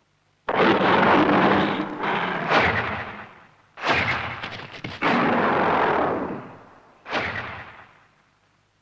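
Heavy booming footstep sound effects of an invisible giant monster, about five thuds in all. Each cuts in suddenly and dies away over a second or so.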